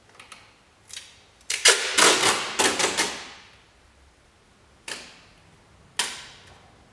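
Green painter's masking tape being pulled off the roll in a long crackling run of several pulls, followed by two short, sharp rips later on as lengths are torn off.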